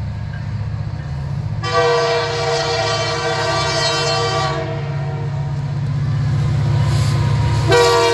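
Canadian Pacific diesel locomotive passing with its engine rumbling, sounding its multi-note air horn in a long blast of about three seconds starting near two seconds in, then again near the end.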